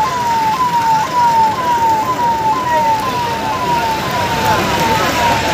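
Emergency vehicle siren sounding a quick falling wail that repeats about twice a second.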